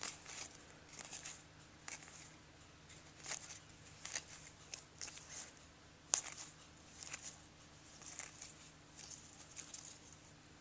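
Faint rustles and soft flicks of baseball cards being pried apart and slid through the hands, the cards stuck together; one sharper snap about six seconds in.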